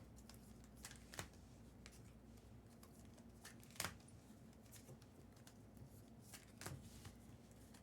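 Near silence with a few faint, short clicks and rustles of trading cards and packs being handled.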